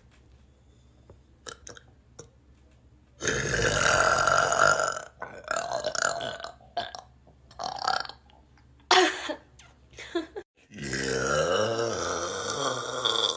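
A person burping several times: a long, loud burp about three seconds in, a run of shorter burps, then another long burp near the end whose pitch wavers up and down.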